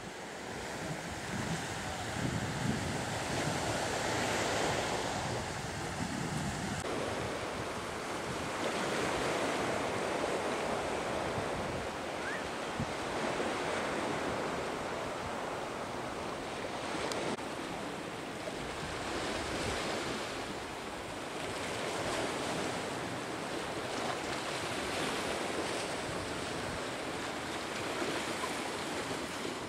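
Sea surf breaking on a rocky shore, swelling and falling back every few seconds, with some wind on the microphone.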